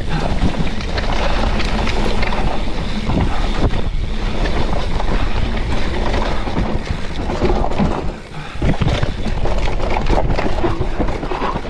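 Hardtail mountain bike descending a rough trail at speed: the tyres and frame clatter over the ground in a steady run of knocks and rattles. Heavy wind buffets the camera microphone.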